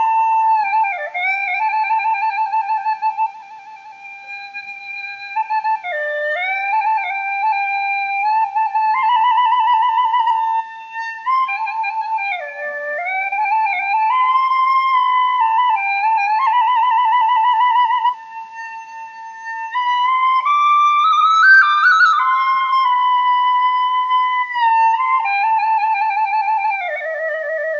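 Background music: a solo flute playing a melody one note at a time, with a wavering vibrato on the held notes.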